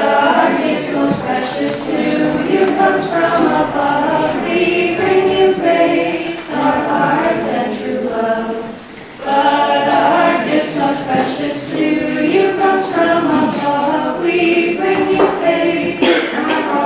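Group of children and teenagers singing a Christmas carol together, with a short break for breath between phrases about nine seconds in.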